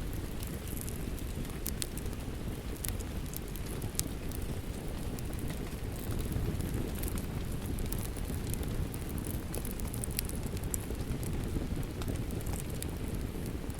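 Fireplace fire crackling, with scattered sharp pops and snaps, over the steady rush of rain.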